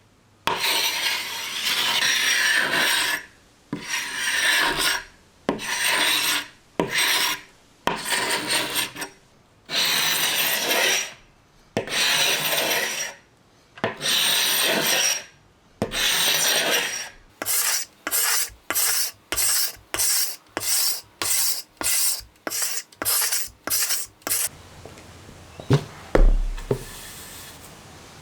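Carbide hand scraper stripping old finish from a wooden tabletop: long rasping strokes about a second each, then quicker short strokes about two a second. Near the end the scraping stops and there is a single low thump.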